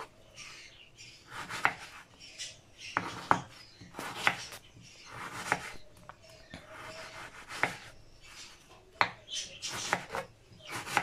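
Kitchen knife dicing tomatoes on a wooden cutting board: irregular knocks of the blade against the board, roughly one a second, with softer slicing sounds between.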